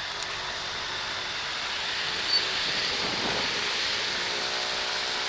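Steady hiss of wind and tyres on a wet road while cycling in the rain, with traffic noise, growing a little louder after about a second.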